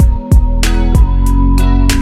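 Background music: plucked and strummed guitar over sustained low notes, with a regular beat.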